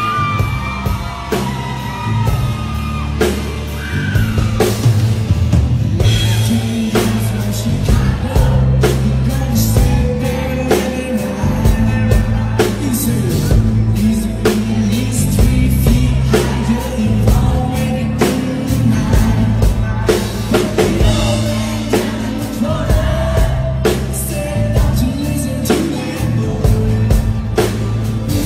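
Live country-rock band playing loudly: electric guitar, bass and a steady drum beat under a male lead vocal, with a heavy low end.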